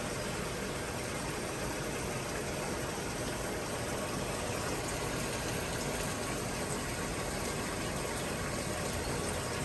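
Maytag top-load washer running with a steady, even rush of water, typical of the tub filling before agitation begins.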